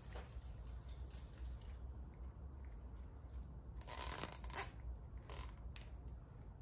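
Hand work on an engine: a scraping, rustling sound about four seconds in, then two shorter ones, over a low steady hum.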